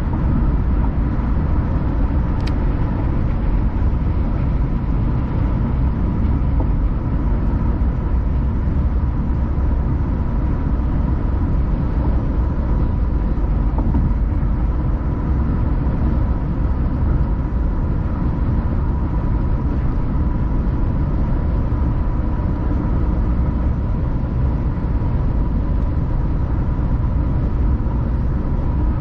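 Car driving at a steady speed: a steady low rumble of road and engine noise with a faint steady hum above it, and one brief tick about two and a half seconds in.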